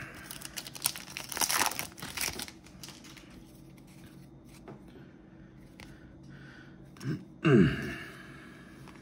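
Foil wrapper of a Topps baseball card pack being torn open and crinkled, for the first two seconds or so. About seven and a half seconds in comes a brief, louder low sound that drops in pitch.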